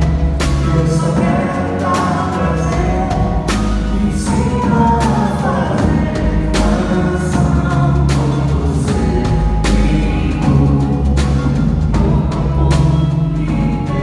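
Live band music: singing over drums and percussion, with regular drum strikes through a continuous bass and chordal backing.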